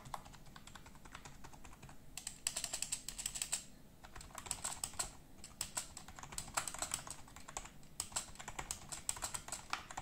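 Fast typing on a Mars Gaming MKTKL hybrid 'h-mech' keyboard, whose keys press a rubber membrane against the circuit board under mechanical-style keycaps. It gives a rapid clatter of keystrokes, lighter for the first couple of seconds, then louder runs of presses broken by short pauses.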